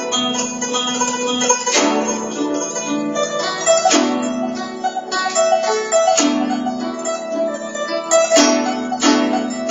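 Guzheng being played solo: plucked strings ringing on, with a strong accented stroke about every two seconds over a run of lighter notes.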